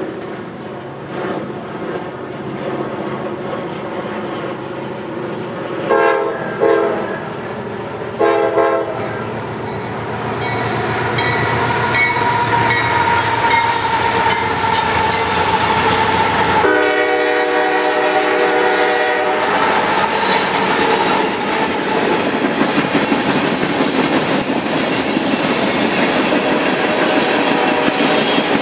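CSX freight train led by GE AC6000CW diesel locomotives approaching and passing. The air horn sounds three short blasts about six to nine seconds in and one long blast of about three seconds past the middle, over the locomotives' engines. Then the wheels clatter over the rail joints as the freight cars roll by.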